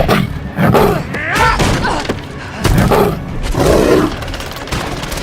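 Animated fight sound effects: a run of thuds and hits mixed with short shouts and grunts from the fighters, about five loud bursts in all.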